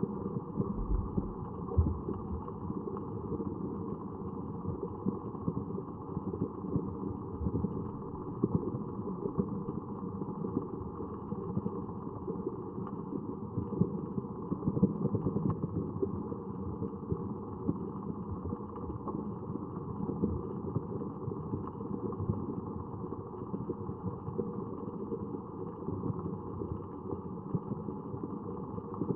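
Steady, muffled low rumble with fine crackling throughout.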